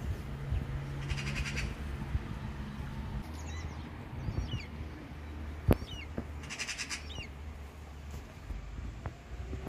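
Birds calling outdoors: several short, rising chirps and two quick, rattling trills, over a low steady background hum.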